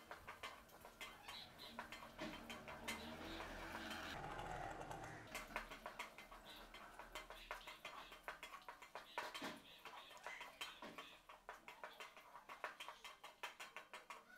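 A wooden spatula stirring chopped onions and nuts around a metal kadai, making a quick, faint run of light clicks and scrapes against the pan.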